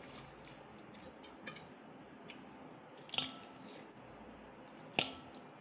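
Pieces of wet raw chicken dropped into a steel bowl, with three short wet plops and drips about a second and a half apart over a faint hiss.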